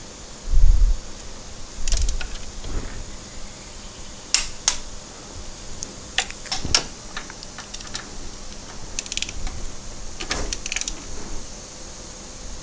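Ratcheting torque wrench working the oil filter housing bolts: scattered sharp metallic clicks, some in quick runs, as the bolts are brought to torque. A dull knock about half a second in is the loudest sound.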